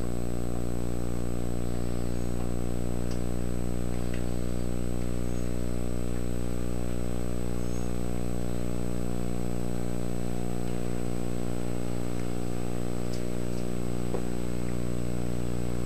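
Steady electrical hum with a stack of even overtones and a faint high whine, unchanging in pitch and level; it is the background hum of an old video recording, with no other sound in it.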